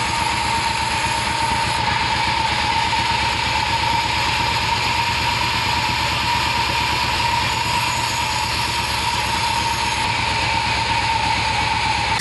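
Band saw running without cutting: a steady high whine over a fast, even low chug from its drive engine.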